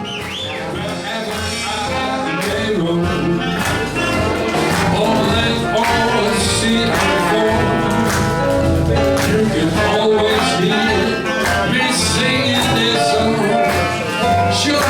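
Music with a steady beat, fading in over the first couple of seconds and then playing on at full level.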